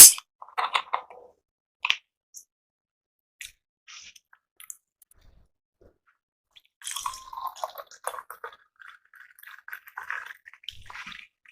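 A person drinking fizzy cola: small wet mouth clicks, gulps and swallows, coming more thickly in the second half, after a sharp loud click at the very start.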